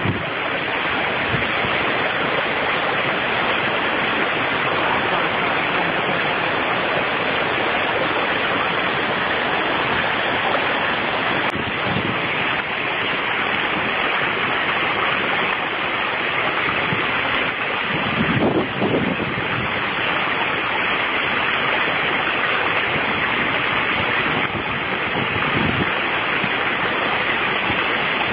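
Steady rushing of a rocky mountain stream tumbling over stones, with a brief low buffet partway through.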